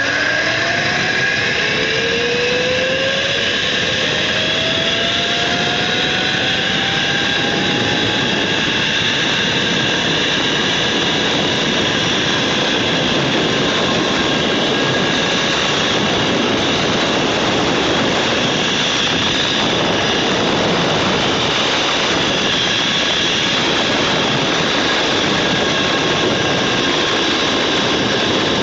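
Zip-line trolley pulleys running along the steel cable: a whine that rises in pitch over the first several seconds as the rider picks up speed, then holds as a steady high whir over a constant rushing of air.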